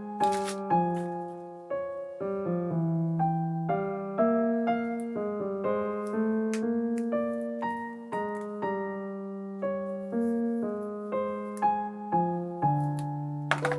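Background piano music: a light melody of single plucked-sounding notes over a repeating low bass line. A few short clicks of handling sound over it just after the start and again near the end.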